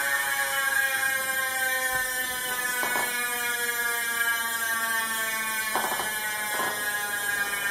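Chris King ISO rear hub freewheeling on a spinning wheel: its freehub ratchet makes a loud, high-pitched buzz that slowly drops in pitch as the wheel coasts down. A few short rasps break in around the middle and near the end.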